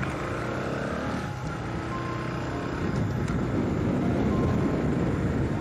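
Bajaj Pulsar NS200 motorcycle running under way, with a steady low engine rumble and a rushing noise that gets louder in the second half.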